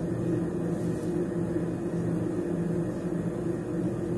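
Steady low mechanical hum with a soft hiss.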